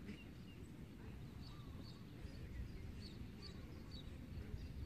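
Faint outdoor ambience: a low rumble of wind on the microphone, with a few short, high bird chirps now and then.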